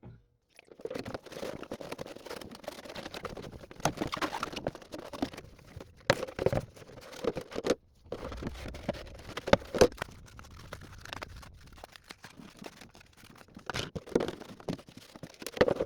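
Handling noises from a clear plastic RC car body being worked by hand: irregular scraping, rubbing and tapping with sharp clicks, in short stretches with brief breaks.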